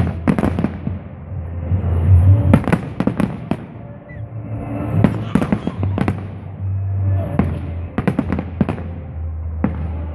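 Fireworks display: aerial shells bursting in salvos, each a cluster of sharp bangs and crackles, coming roughly every two to three seconds.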